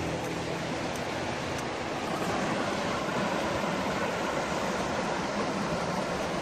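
Steady rush of a rocky mountain creek, its water running white over stones in the canyon below.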